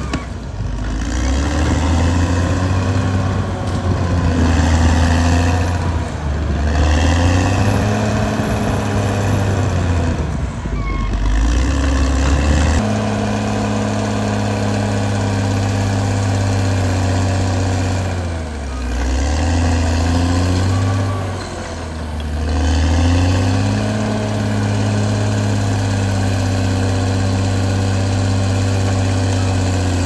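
Caterpillar D6R XL bulldozer's diesel engine working, its pitch rising and falling repeatedly under changing load. About halfway through it settles to a steady note, then sags and recovers twice.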